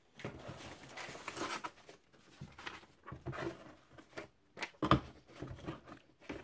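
A sheet of paper and the cardboard box insert being handled: irregular rustling, sliding and scraping, with a sharp knock a little before five seconds in.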